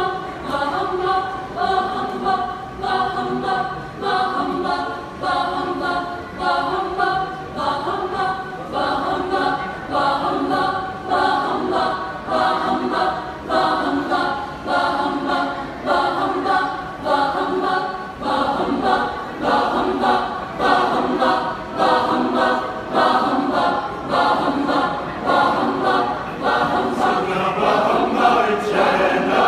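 Mixed choir singing a cappella, chanted chords pulsing in a steady rhythm of about one beat a second, growing a little louder near the end.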